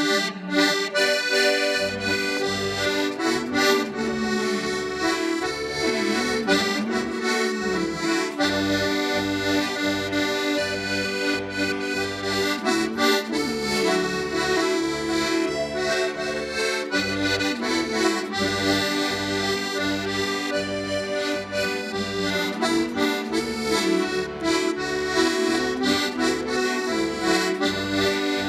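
Push-button accordion playing a lively tune: a treble melody over sustained chords, with rhythmic bass notes coming in about two seconds in and pulsing steadily from then on.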